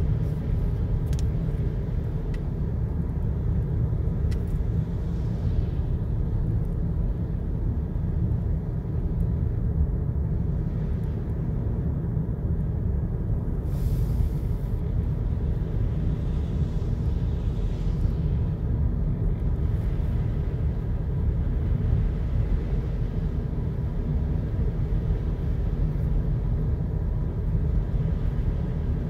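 Steady low rumble of a car driving slowly, heard from inside the cabin, with a brief hiss about halfway through.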